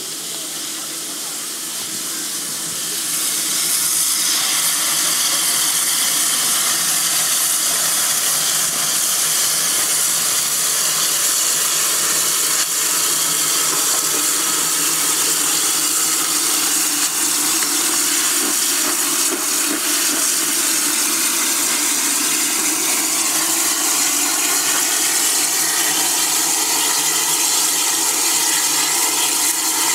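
0-6-0 coal-burning steam locomotive venting steam: a loud, steady hiss that swells about three seconds in and then holds.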